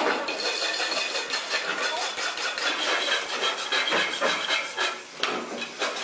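Irregular light metallic clicks, knocks and scraping of hand work on an electric motor's cast stator housing, a flat steel blade being worked in the stator slots.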